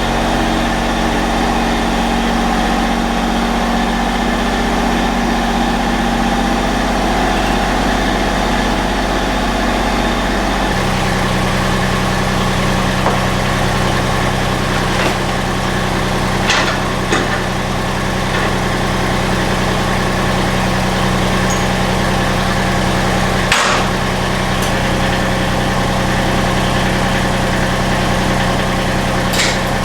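Lawn tractor engine running steadily, its note changing about eleven seconds in as the tractor is manoeuvred, with a few sharp knocks later on.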